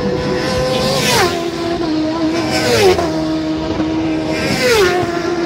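Racing motorcycles passing at high speed one after another: three engine notes, each dropping sharply in pitch as the bike goes by, about two seconds apart.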